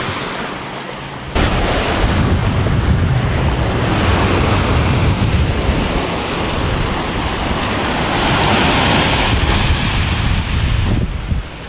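Small waves breaking and washing up a sandy beach, with wind buffeting the microphone; the sound jumps suddenly louder about a second in.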